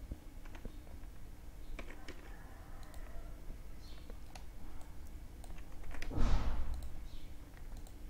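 Scattered computer keyboard and mouse clicks. A brief, louder noisy burst comes about six seconds in.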